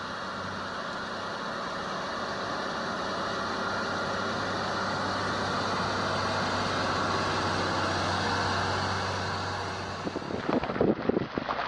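Dubbed-in heavy vehicle engine sound effect, running steadily and slowly growing louder, then cut off about ten and a half seconds in by a rougher, crackling noise.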